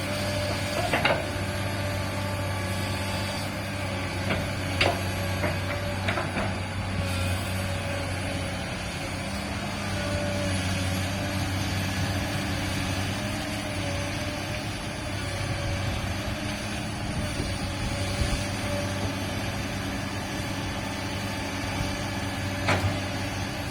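Komatsu PC200-8 excavator's six-cylinder diesel engine running steadily with a faint hydraulic whine. A few sharp metallic knocks come in the first six seconds and again near the end.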